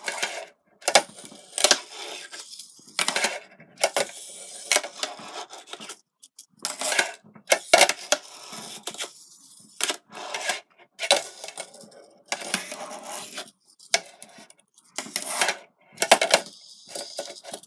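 Fingerboards, small decks with trucks and wheels, clacking and rattling against a hard surface: repeated sharp clicks in irregular clusters, with lighter rattling between them.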